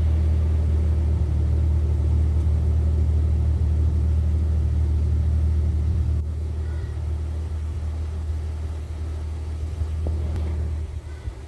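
1996 Jeep Cherokee XJ engine idling with a steady low hum. It eases slightly about halfway through and drops off again near the end.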